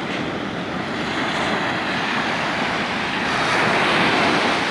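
Pacific surf: the steady rush of breaking waves, swelling louder about three and a half seconds in.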